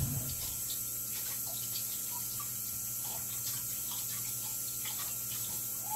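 Kitchen tap running steadily into a sink while hands are rinsed to wash off flour, with small splashes.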